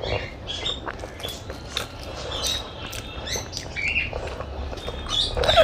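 Close-up eating sounds: wet chewing and lip smacks, an irregular string of short clicks and squelches, the loudest near the end.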